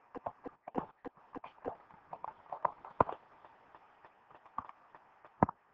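Irregular light clicks and taps, a dozen or more, from writing on a computer-based digital whiteboard. The loudest come about three seconds in and near the end.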